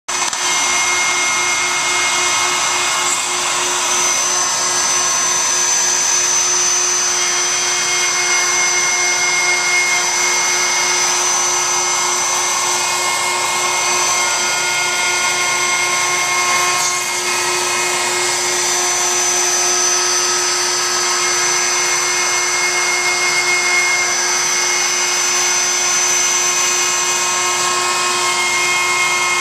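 Router on a home-built CNC machine running steadily while it mills away the waste wood of an inlay plug, a constant whine mixed with cutting noise.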